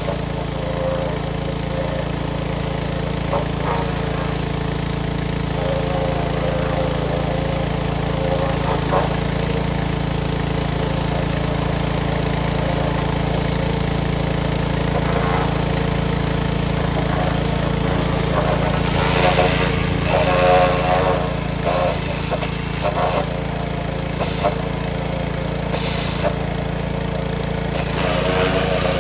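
Power washer running steadily, its needle-spray jet blasting grime off a bare Ford 302 V8 engine. The hiss of the spray comes and goes in louder spurts about two-thirds of the way through.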